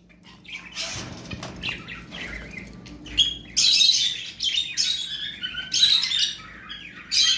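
Small caged parrots, such as budgerigars and lovebirds, chirping and chattering in quick high bursts that grow busier about halfway through.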